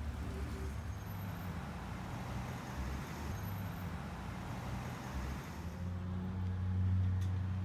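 Street traffic noise: a steady low rumble of passing cars, growing a little louder and steadier from about six seconds in.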